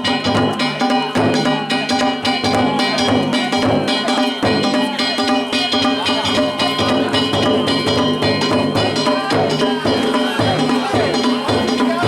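Danjiri bayashi festival music: taiko drums beating a steady rhythm while hand-struck metal gongs ring and clang over them.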